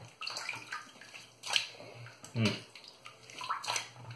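Water splashing as shaving lather is rinsed off the face by hand at the sink, in irregular splashes, the loudest about a second and a half and two and a half seconds in.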